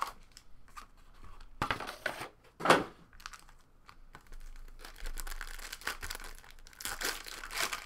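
Plastic shrink wrap on a trading card box being torn and crinkled off in irregular bursts, with one sharp, loud rip a little under three seconds in and steadier crinkling later on.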